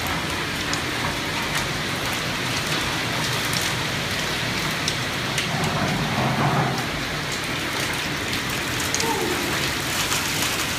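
Hailstorm pelting the building and the ground outside, heard through window glass: a dense, steady hiss with many small sharp ticks of hailstones striking.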